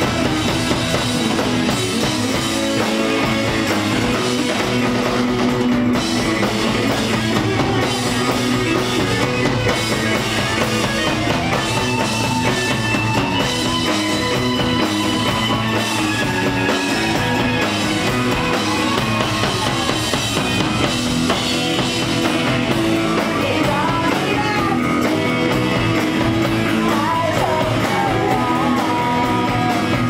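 Live rock band playing loud and steady, with drum kit and electric guitar.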